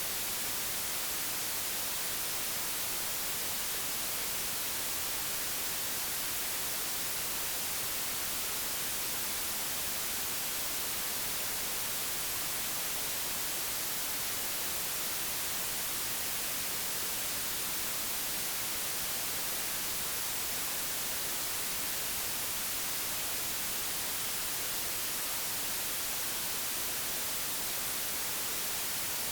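Steady, digitally generated white noise: an even, unchanging hiss with no other sound.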